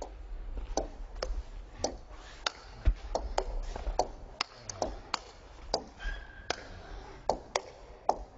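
A table tennis ball played back and forth in a fast rally: a run of sharp clicks, a few a second, as the celluloid ball strikes the rubber-faced bats and bounces on the table.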